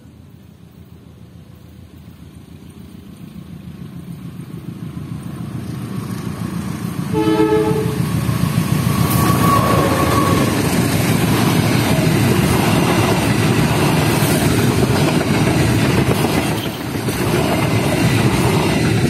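KAI diesel locomotive and passenger train approaching and passing close by. The rumble builds steadily, the horn sounds one short blast about seven seconds in, then the engine and the wheels on the rails run loud as the coaches go by, easing briefly near the end.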